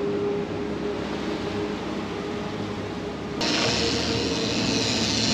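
Fishing boat's engines running steadily under way with the wake rushing behind, a held hum under the water noise. About three and a half seconds in it cuts abruptly to a louder, hissier rush of churning wake and wind close to the water, with a thin high tone over it.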